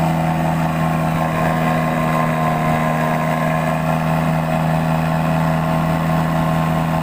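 Small boat engine running steadily at an even speed, a constant low hum with no change in pitch.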